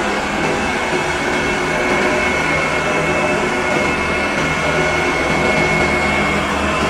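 Robot vacuum cleaner running with a steady whirring hiss and a constant high whine.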